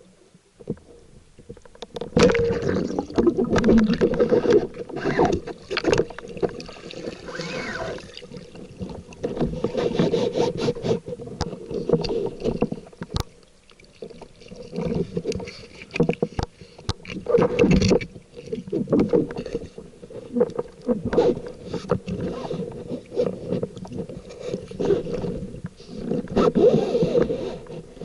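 Muffled water movement with irregular knocks and clicks, heard through a camera in an underwater housing during spearfishing, with swells of sound coming and going.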